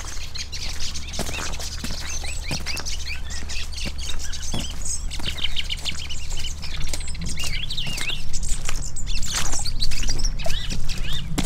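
Small birds chirping and twittering continuously, over footsteps of gumboots on a wet gravel road. A steady low rumble runs underneath.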